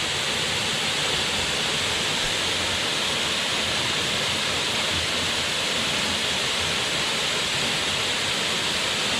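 Steady rush of Glencar Waterfall, water falling over rock ledges at a fairly low summer flow.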